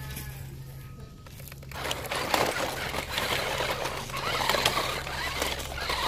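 RC rock crawler's tyres climbing over broken brick and stone rubble, stones crunching and clattering, starting about two seconds in and loudest near the end, over a steady low hum.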